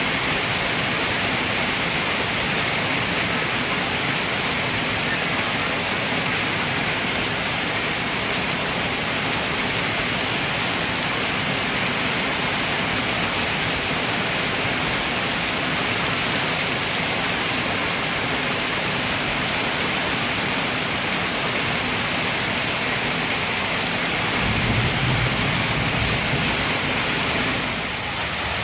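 Heavy rain pouring down steadily, with a low rumble for a few seconds near the end.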